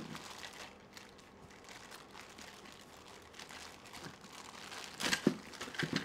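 A clear plastic parts bag being handled and pulled open, faintly crinkling, with a sharp, loud crackle of plastic about five seconds in and another near the end.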